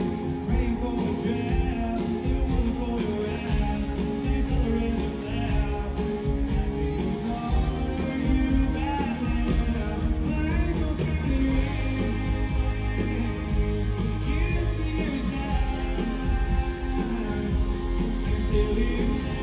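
Live country band playing through a concert sound system, heard from the crowd: electric and acoustic guitars over bass and drums, with a male voice singing.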